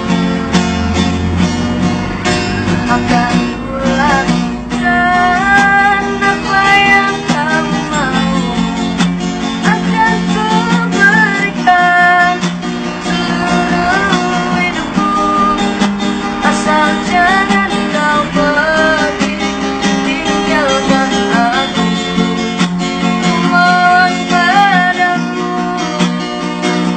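Street busker singing a melody to a strummed acoustic guitar.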